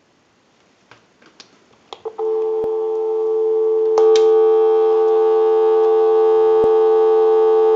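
Continuous telephone dial tone from a single-slot payphone's handset, starting about two seconds in after a few light handling clicks. About four seconds in it steps up louder as the payphone's volume-control button is pressed.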